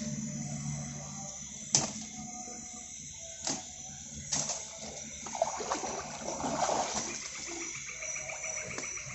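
Water sloshing and splashing as someone wades, with a sharp knock a couple of seconds in and two softer ones after it. Crickets and other insects chirp throughout.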